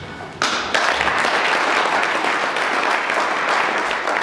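Audience applauding in a hall. The clapping starts suddenly about half a second in and holds steady.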